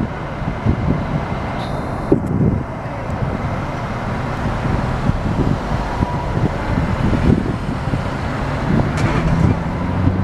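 Street traffic: a steady low rumble of vehicles on the road, with irregular low thumps, and a low engine hum that comes in near the end.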